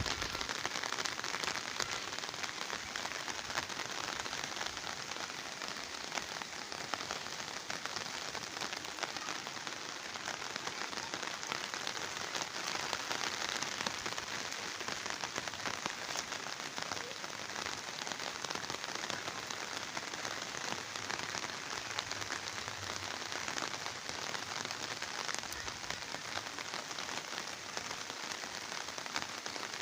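Heavy rain falling steadily, a continuous even hiss of drops hitting the ground and surfaces.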